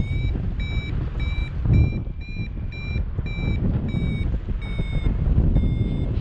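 Free-flight variometer beeping in short high beeps, about two to three a second, the rhythm typical of a vario signalling weak lift. Wind rushes loudly on the microphone underneath.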